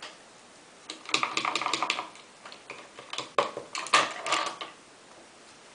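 Two bursts of rapid clicking and light clatter from small hard objects, each about a second long, the second louder.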